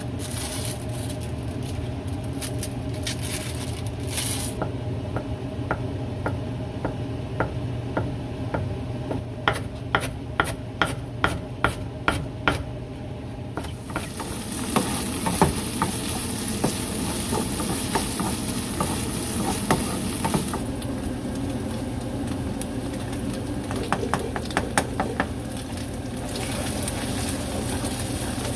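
Home kitchen cooking sounds: a run of sharp utensil knocks, about two a second, then a stretch of sizzling in a pan, over a steady low hum.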